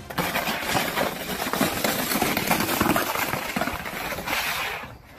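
A round plastic saucer scraping and rattling over icy asphalt as a dog drags and shoves it: a rough, continuous, uneven scraping that dies down near the end.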